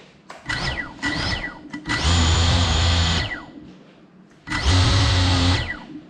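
FPV quadcopter's brushless motors and propellers revving in bursts without lifting off: two quick blips, then two longer runs of about a second each, each winding down with a falling whine.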